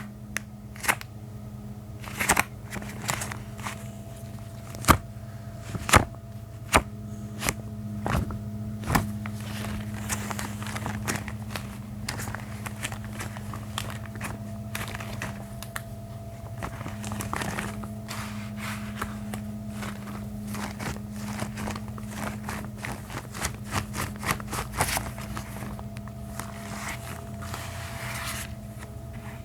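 Gloves being handled close to the microphone: a string of sharp snaps and crackles, sparse and louder in the first ten seconds, then coming thicker and quicker. A steady low hum runs underneath.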